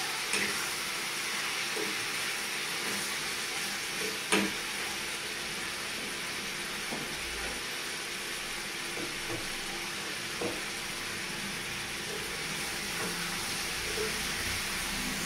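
Pieces of meat sizzling as they fry in a pan, stirred with a metal ladle that scrapes and knocks against the pan now and then, the sharpest knock about four seconds in.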